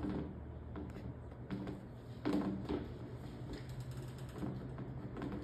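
A few light clicks and handling noises as plastic water tubing and fittings are pushed on by hand, over a steady low hum.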